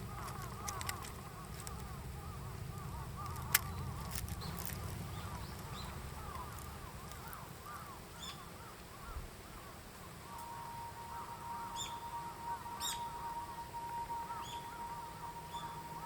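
Outdoor ambience with scattered bird calls and a low rumble, with a sharp click about three and a half seconds in; about ten seconds in a steady held music tone begins.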